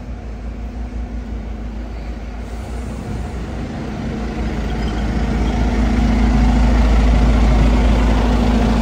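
Fire truck's diesel engine idling: a steady low rumble with a humming tone, growing louder about halfway through.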